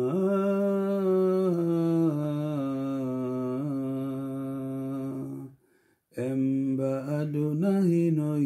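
A man's low voice chanting a slow melody in long held notes that step down in pitch. It breaks off for a moment about five and a half seconds in, then resumes with shorter, wavering notes.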